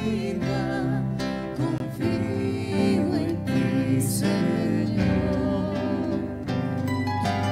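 Live church music: a woman singing with a Korg Triton keyboard and an acoustic guitar accompanying her. Coming between the psalm and the Gospel, it is the sung Gospel acclamation.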